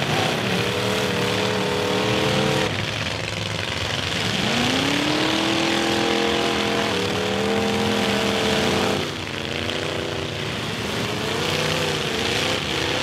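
Engines of full-size demolition derby cars revving hard and held at high revs. One engine revs up about four seconds in, and the pitch drops off near three and nine seconds.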